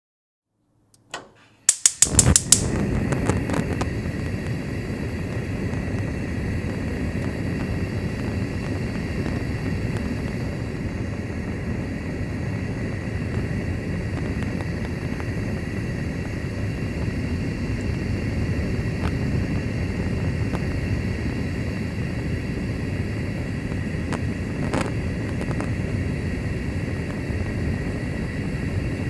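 Kitchen gas stove burner being lit: a quick run of igniter clicks about two seconds in, then the burner catches and the gas flame burns with a steady rushing hiss.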